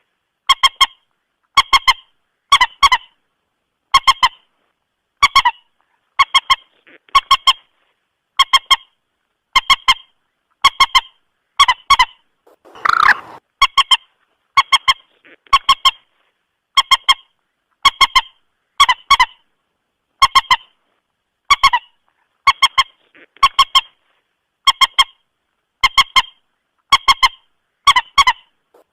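Moorhen (mandar batu) lure calls: short, sharp notes in pairs or threes, repeating about once a second, with one longer, fuller call about halfway through.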